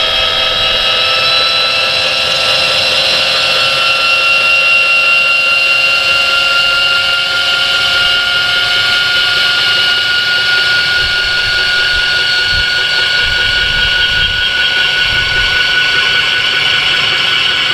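Electric gate-opener linear actuator running as its screw-drive arm extends and raises a homemade steel-frame lift platform. A steady motor whine that creeps slightly up in pitch, stopping near the end.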